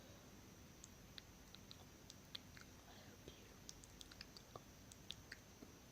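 Close-miked ASMR mouth sounds: a run of faint, irregular wet clicks and smacks of tongue and lips, a few every second.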